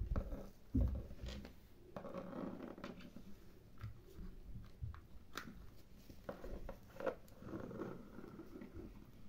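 Small plastic toys handled on a tabletop: a doll and a small plastic toy suitcase moved about, giving light clicks, taps and rustling, with two dull thumps in the first second.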